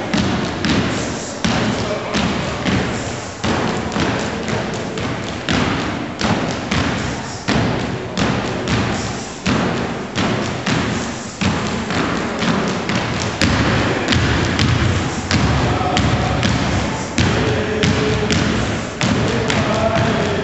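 Step team stomping and clapping in unison, a fast rhythm of sharp stomps on a wooden gym floor and hand claps, each echoing in the large hall.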